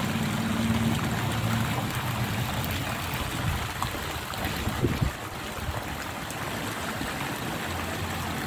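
Pool water jets spraying and splashing into the water, a steady rush of running water. A low steady hum sits under it for the first two seconds, and there is a brief thump about five seconds in.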